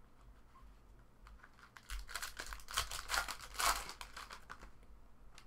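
Foil trading-card pack wrapper crinkling as it is torn open and pulled off the cards. The crinkling starts about two seconds in, is loudest in the middle and dies away near the end, after some light card handling.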